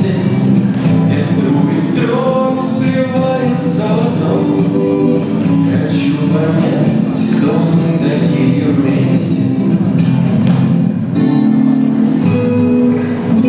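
Pop song with singing and a steady beat. Near the end the vocal line stops and a held chord carries on.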